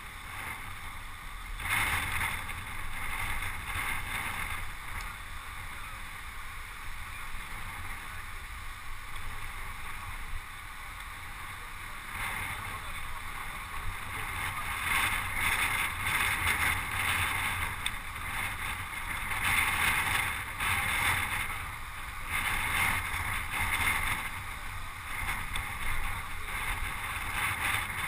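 Wind and road noise rushing over a camera riding on a racing bicycle, a continuous muffled rush with a low rumble that swells and fades, louder in the second half.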